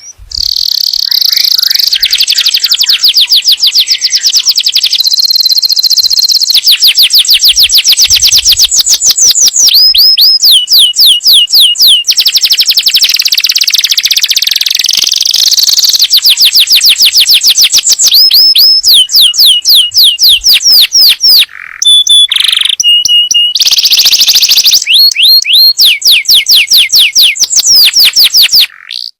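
Domestic canary singing loudly: long, fast trills of rapidly repeated sweeping notes that switch to a new trill every few seconds, with a short break and a few steady whistled notes a little past the two-thirds mark.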